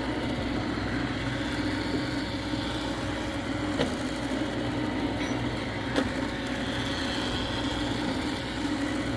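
Roomba robot vacuum running with a steady motor and brush hum, with a couple of light clicks about four and six seconds in.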